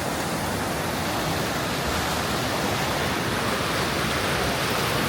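Waterfall water rushing in a steady, even roar of noise that does not change.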